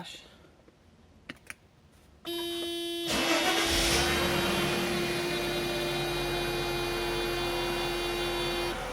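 Two small clicks, then the 1995 Mercedes-Benz E320's straight-six is cranked by the starter, catches about three seconds in and settles into a steady idle.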